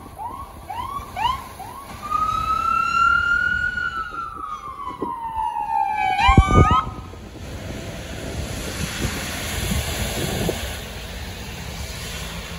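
Ambulance's electronic siren: rapid yelps, then one slow wail rising and falling in pitch, then a few more quick yelps and a short low blast before it stops about seven seconds in. A steady hiss of rain and traffic on the wet road follows.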